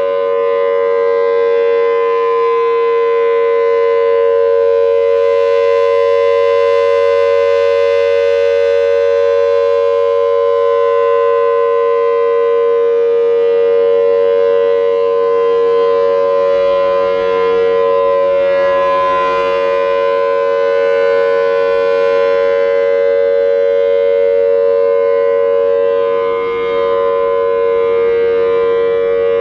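Federal Signal Thunderbolt 1000T outdoor warning siren sounding its steady alert signal at close range. It holds two loud, unchanging pitches with no wail.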